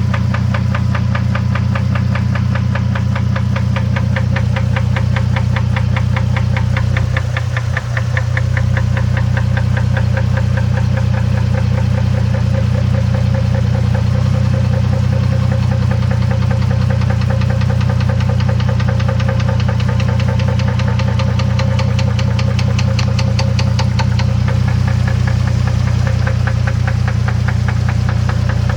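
A running engine with a steady low hum and a fast, even ticking or knocking over it, dipping briefly about a quarter of the way through.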